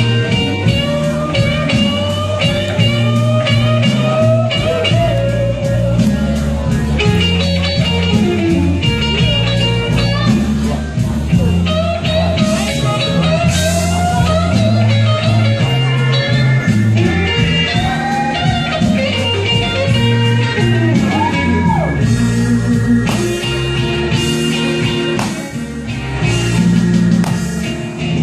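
Blues karaoke backing track in an instrumental break: a guitar solo with bent notes over steady bass and drums.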